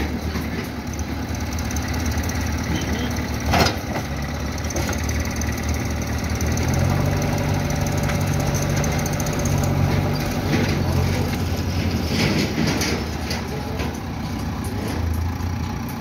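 JCB 3DX backhoe loader's diesel engine running steadily while the machine works its front loader bucket, growing louder for a few seconds from about seven seconds in. A single sharp knock sounds about three and a half seconds in.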